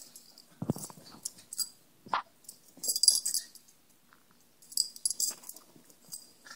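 Dog scratching itself, the metal tags on its collar jingling in short rapid bursts about four times, with a soft thump near the start.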